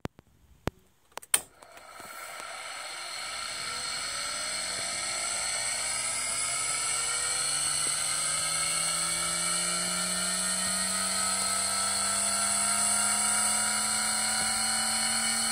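Aircraft turn coordinator's gyro spinning up: a whine of several tones that climbs slowly in pitch, growing louder over the first few seconds and then holding level. Two sharp clicks come about a second in, just before the whine starts.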